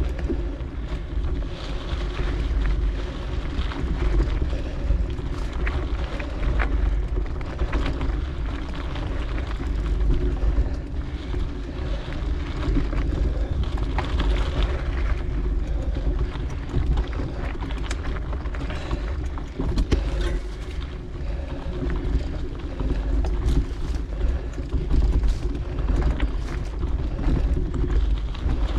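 Wind buffeting a chin-mounted action camera's microphone during a ride down a dirt singletrack, over a steady rumble with scattered clicks and rattles from the trail surface.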